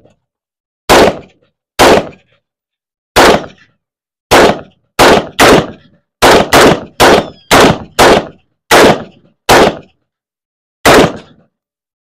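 About fourteen single rifle shots from two AR-15-style carbines taking turns at a steel dueling tree. Each is a sharp crack that dies away quickly, coming at an uneven pace, bunched closer together in the middle.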